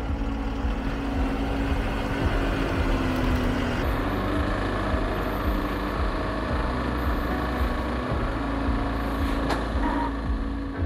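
Heavy-haulage truck's diesel engine running steadily with a low rumble.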